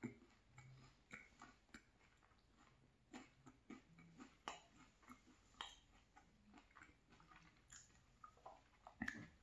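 Faint close-up chewing with the mouth closed: scattered soft, wet smacks and clicks of a mouthful of food being worked.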